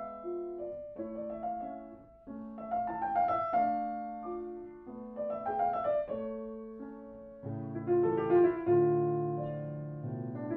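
Grand piano playing a slow classical passage: phrases of notes that swell and die away over held chords. Deeper bass notes come in about seven seconds in, and the loudest notes fall near the end.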